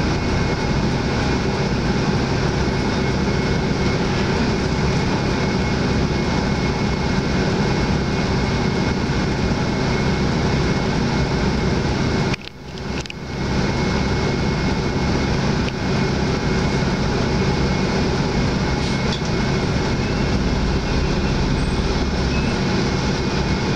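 Inside the cabin of a Hyundai Universe coach: the diesel engine's steady low hum and a constant hiss of cabin noise. The sound drops out briefly about halfway through, then returns.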